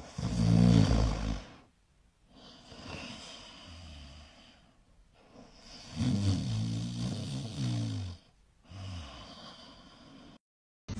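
Flat-faced dog snoring in deep sleep, lying on its back with its mouth open. There are two loud, drawn-out snores, about a second in and again around six seconds in, with quieter snoring breaths between them.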